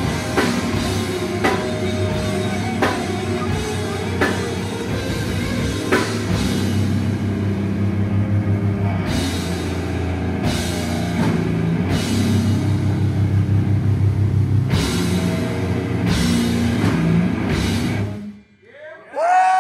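Metal band playing live with heavily distorted guitars, bass and drums, with cymbal crashes. The music stops abruptly about 18 seconds in, and a brief loud pitched sound that rises and falls follows near the end.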